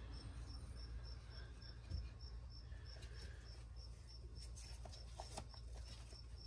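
A cricket chirping steadily outdoors, short high chirps about three times a second, over a faint low hum.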